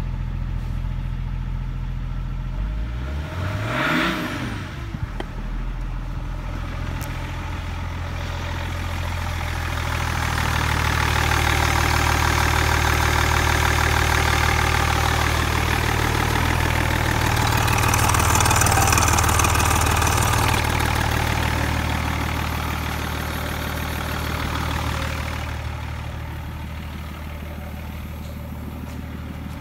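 BMW M57D30 3.0-litre straight-six turbodiesel idling just after starting, revved once briefly about four seconds in, the pitch rising and falling. It is louder and brighter for a long middle stretch, heard close to the open oil filler neck, and quieter near the end at the tailpipe.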